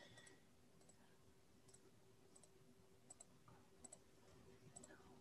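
Near silence, broken by faint computer mouse clicks: a quick double tick for each press and release, about one every three-quarters of a second, as the Next Page button of a PDF viewer is clicked repeatedly.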